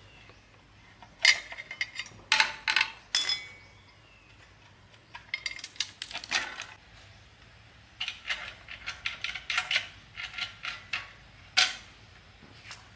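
Hard metal objects clinking and knocking together in irregular clusters of sharp strikes, some leaving a brief ring.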